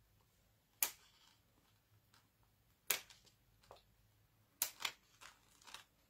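Scissors snipping through a die-cut honeycomb cardstock panel backed with adhesive sheet: single sharp snips a second or two apart, then a quicker run of smaller snips near the end.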